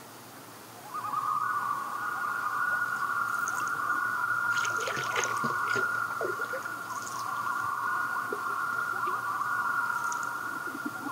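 Common loons wailing: long, steady calls at two slightly different pitches that overlap, starting about a second in and running on.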